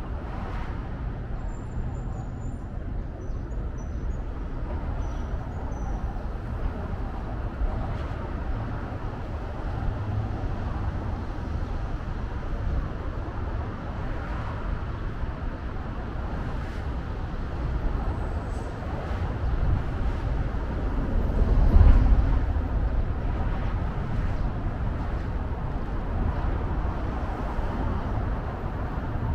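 Steady road traffic noise, with one vehicle passing louder about three-quarters of the way through.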